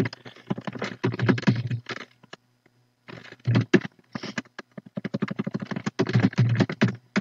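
Computer keyboard typing: quick runs of keystrokes, with a short pause about two seconds in.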